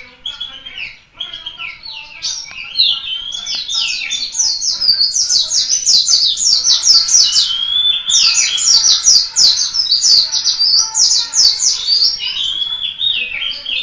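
White-eye (pleci) in full song: a long run of high, fast twittering with quick downward-sweeping notes. It opens with slower slurred phrases and from about four seconds in builds to a dense stream of rapid chirps.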